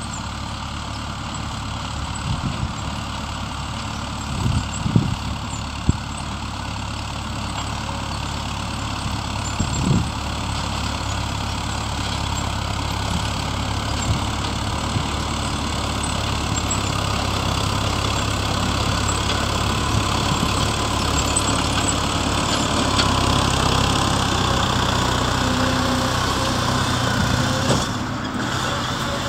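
Tractor engine and its towed sugar beet harvester running steadily, growing louder as they approach; a few short knocks in the first ten seconds.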